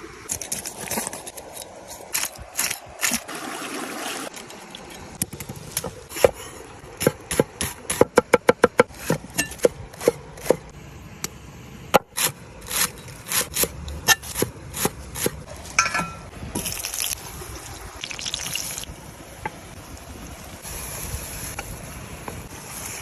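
Irregular sharp knocks and clicks over a steady low background, with a quick even run of taps, about eight a second, around eight seconds in.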